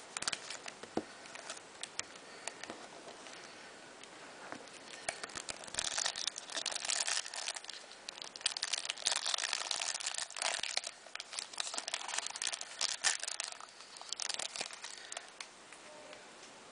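Foil trading-card pack wrapper being handled and opened, crinkling. It starts with scattered light clicks, then crinkles densely from about five seconds in until about fourteen.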